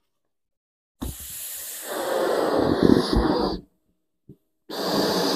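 A man blowing up a balloon by mouth: two long, hissing breaths blown into it, about a second apart.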